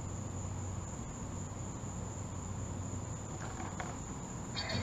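Steady high-pitched insect drone of summer crickets, one unbroken tone, over a low steady rumble. Near the end a louder, brighter sound comes in.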